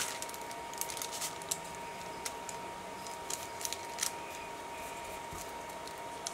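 Paper handling: soft rustles and scattered small clicks and taps as glue-wet book-page paper is brushed down and its edges pressed and folded over a card. A faint steady tone hums underneath.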